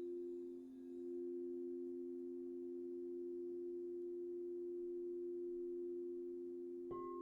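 Singing bowls ringing: two low sustained tones that slowly waver in loudness, then near the end another bowl is struck, adding a higher ringing tone.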